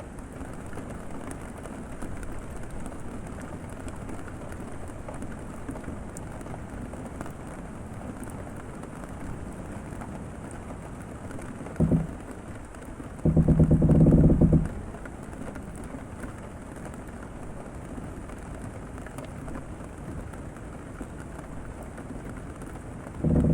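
Steady rain pattering on a boat cabin, with the boat's wooden structure creaking: a short creak about halfway through, then a longer, louder creak of about a second and a half, and another short creak at the end.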